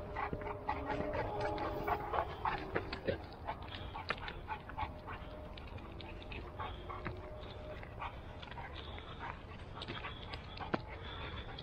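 A dog whining in wavering, pitched sounds, most in the first few seconds, over the crunch of footsteps on a loose rocky dirt trail and a steady low wind rumble on the microphone.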